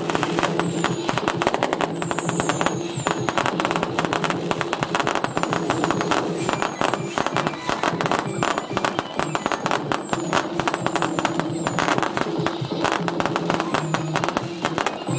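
An aerial fireworks barrage: dense, continuous crackling and banging, with many short high whistles that fall in pitch, several in quick succession at times. A steady low hum runs underneath.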